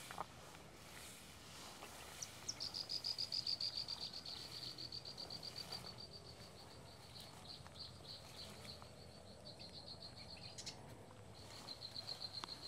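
An insect trilling: a rapid, even pulsing at one high pitch that starts about two seconds in, slowly fades, breaks off and starts again near the end. A brief click comes at the very start.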